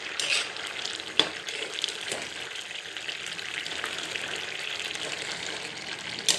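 Curry with added water boiling in a pan, a steady bubbling sizzle that sounds like rain falling, with a couple of sharp ticks about one and two seconds in.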